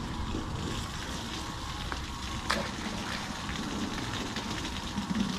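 Outdoor marina ambience: a steady low hiss of wind and water with a faint low rumble underneath, and one sharp click about two and a half seconds in.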